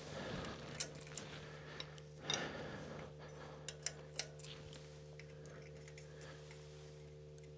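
Scattered light clicks and taps from hand work on a trike wheel with wrenches, the most in the first half, over a steady low hum.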